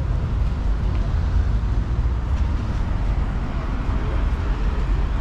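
Street ambience: a steady low rumble of road traffic, with faint voices of passers-by.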